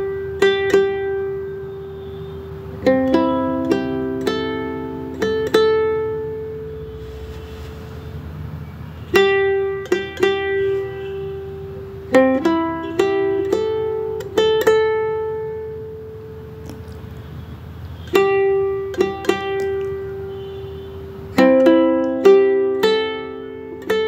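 Background music: a gentle plucked-string melody, ukulele-like, in phrases of sharp plucked notes that ring and fade.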